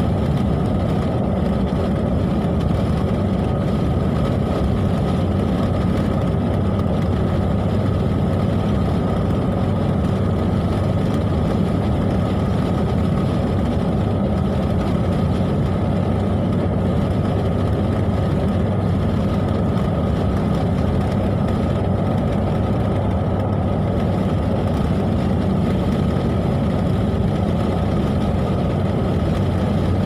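Steady engine and tyre noise inside a car's cabin as it drives along an open road at an even speed.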